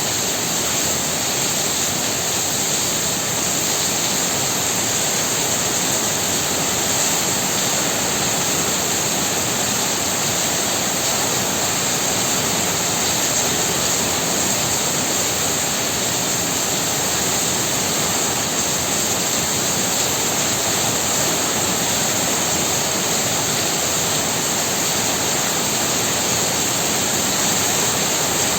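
Heavy rain pouring down steadily in strong wind, a dense, even hiss with no single drops standing out.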